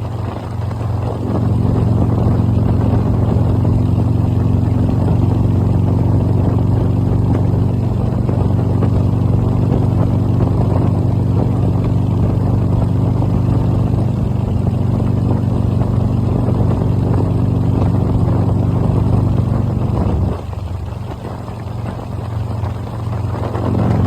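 Motorcycle engine running steadily at highway speed, heard from the bike with road and wind noise. About twenty seconds in the sound drops off for a few seconds, as when the throttle eases, then picks up again near the end.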